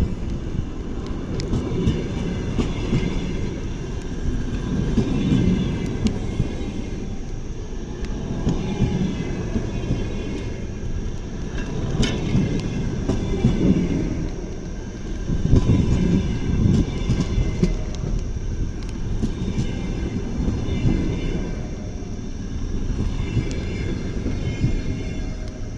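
Passenger train hauled by an EP2K electric locomotive rolling into a station: a continuous rumble of wheels on rail that swells and eases, with a faint high whine and a few sharp clicks from the track.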